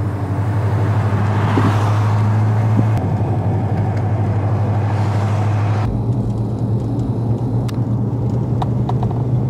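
Car on the road: a steady low engine and road rumble with tyre hiss, the hiss dropping away about six seconds in.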